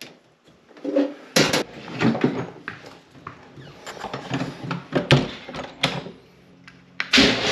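A run of separate clicks and knocks, then a brief electrical hum just before the end, and an appliance motor switching on about seven seconds in and running with a steady whir as the freshly repaired circuit is powered up.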